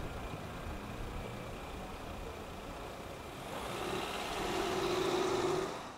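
Road traffic at a level crossing: a low steady background, then a car's engine and tyres getting louder from about three and a half seconds in as it moves off.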